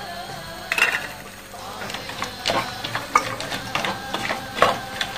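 Wooden spoon stirring green peas in a frying pan, scraping and knocking against the pan in a series of irregular sharp clicks.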